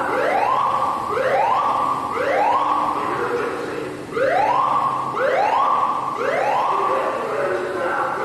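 Fire alarm sounders giving a repeating rising whoop tone, about one sweep a second: each sweep climbs in pitch and then holds briefly. Several sweeps overlap, as if more than one alarm is sounding slightly out of step.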